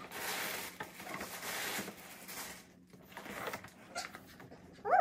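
Gift packaging being handled and unwrapped: a crinkling, rustling noise for about two and a half seconds, then a few quieter handling sounds.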